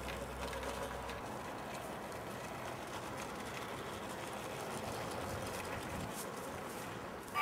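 Faint, steady outdoor background with the quiet running of a battery-powered remote-control G-scale toy steam locomotive on its track. A low hum stops about a second in.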